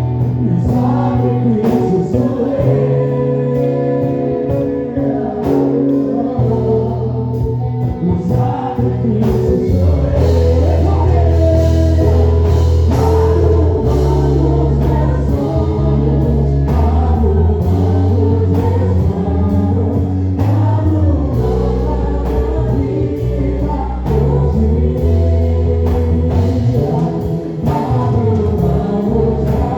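Gospel worship song: a group of voices singing over a band, with long held bass notes and a steady beat.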